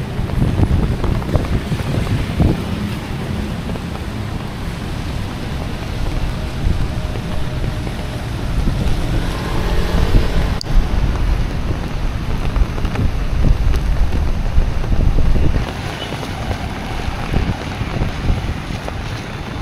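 Gusty typhoon wind buffeting the microphone in a heavy, uneven rumble, over a hiss of rain and wet pavement. A sharp click comes about ten seconds in, and the gusts ease a little near the end.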